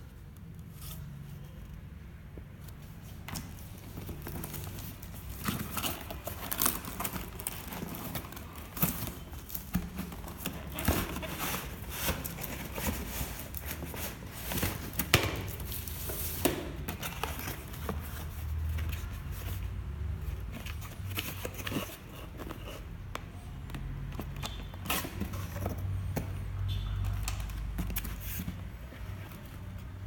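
Packaging being handled and opened by hand: crinkling, tearing and scraping, with irregular sharp clicks and knocks.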